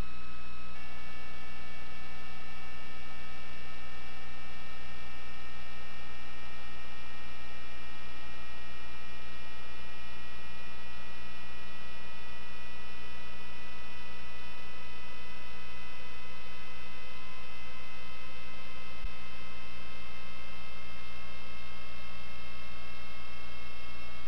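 Steady electrical hum and whine from a sewer inspection camera system, with several thin tones, some of them rising slowly in pitch.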